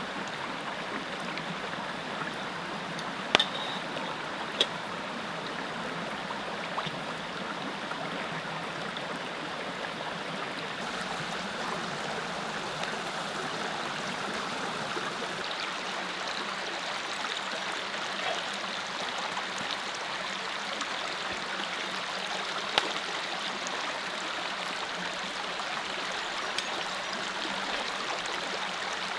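Mountain creek flowing: a steady rush of running water, with a few brief sharp clicks, the loudest a little over three seconds in.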